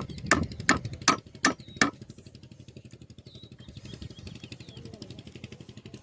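A run of sharp, evenly spaced knocks, about three a second, that stops about two seconds in, over the steady rapid chugging of a small engine.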